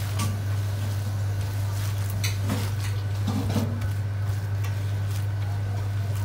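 A steady low hum, with scattered soft squelches and short clicks from a rubber-gloved hand kneading and slapping minced pork and cabbage dumpling filling around a stainless steel bowl.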